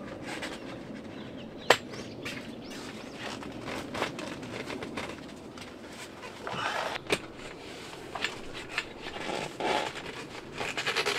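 Handling noises: scattered clicks and knocks with brief scraping and rustling, including one sharp click about two seconds in.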